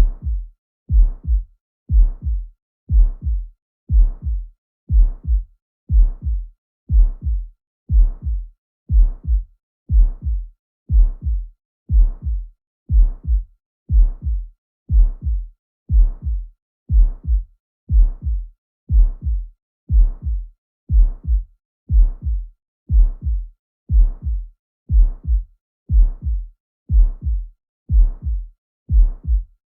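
Heart sounds with a murmur: a steady lub-dub about once a second, about sixty beats a minute, each beat a strong low thump followed closely by a softer one.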